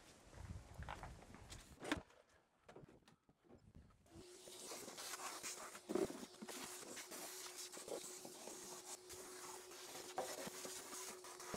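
Knocks and rustling, then a short hush. From about four seconds in, a vacuum cleaner runs steadily with a constant hum and hiss, and there is a bump as its hose is pulled across the van floor.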